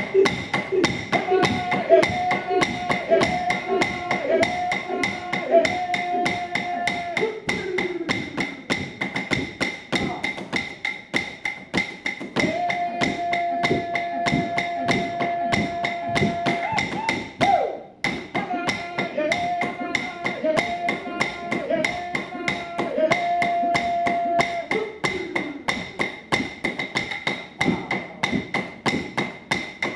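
Aboriginal clapsticks (wooden sticks struck together) beating a fast, steady rhythm under a chanted song, accompanying a shake-a-leg dance. The beat and song pause briefly about halfway through, then carry on.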